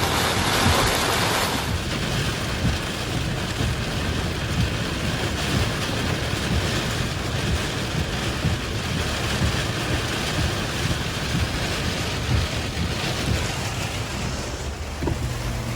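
Strong wind and rain against a vehicle, a steady rushing hiss over a fluttering low rumble of wind buffeting. The hiss is louder for the first second or two, then eases.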